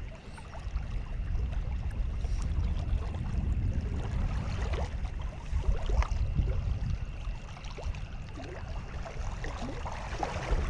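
Wind buffeting the microphone, a low uneven rumble that swells and eases, with a faint steady high-pitched tone in the background.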